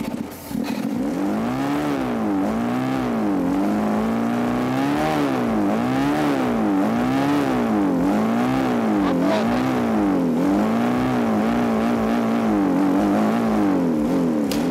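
Four-cylinder car engine with its carburettor removed, running on ether sprayed straight into the bare intake manifold. The revs rise and fall about once a second, holding steadier for a second or so twice, and the engine won't settle at low revs.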